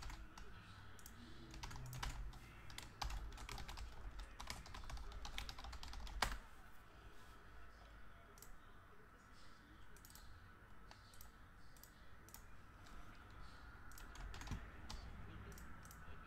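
Computer keyboard typing: a quick run of keystrokes over the first six seconds, ending in one sharper click, then scattered single clicks.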